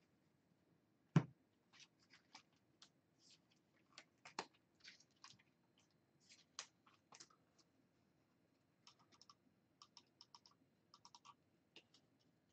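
Trading cards being handled: faint slides, scrapes and clicks of cards against each other and the table, with one sharper knock about a second in and quick runs of small ticks near the end.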